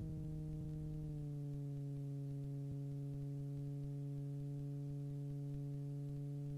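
Super Petrel amphibian's Rotax flat-four engine and propeller droning steadily, heard inside the cockpit, during the approach to a water landing with the prop set for landing. The pitch steps down slightly right at the start and again about a second and a half in, then holds steady.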